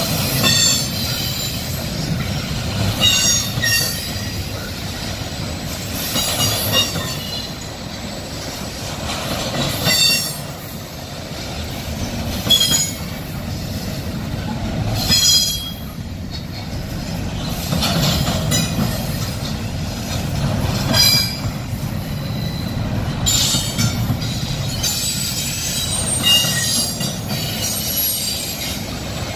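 Union Pacific intermodal freight train's double-stack container cars rolling past with a steady low rumble of wheels on rail. Short high-pitched wheel squeals come back every couple of seconds.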